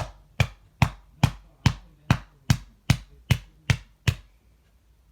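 A run of sharp knocks struck at an even pace, about two and a half a second, eleven in all, stopping about four seconds in.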